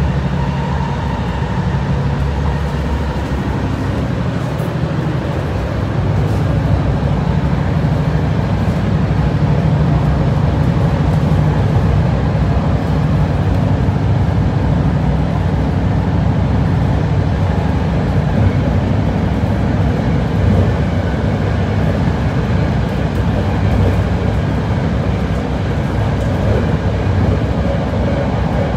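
BART train heard from inside the passenger car while running along the track: a steady, loud rumble of wheels on rail and car body. The rumble grows louder about six seconds in as the train picks up speed.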